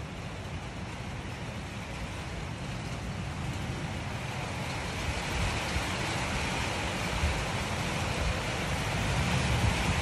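Strong storm wind blowing, with low buffeting on the microphone, growing louder about halfway through.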